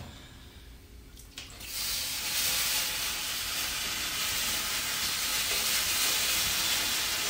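Steady hiss of steam in a sauna, starting suddenly about two seconds in and holding level.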